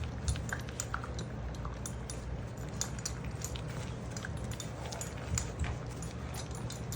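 Six-week-old puppies eating dry dog food: scattered crunching and clicking of kibble, over a steady low rumble.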